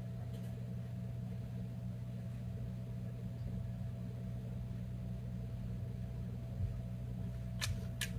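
Steady low background hum with a faint constant higher tone, and two light clicks near the end.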